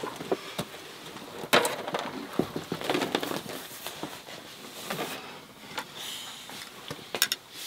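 A cloth rustling as it is smoothed over a carpet, with scattered light clinks and knocks of a tray of tea glasses and plates being set down on it, including a quick cluster of clinks near the end.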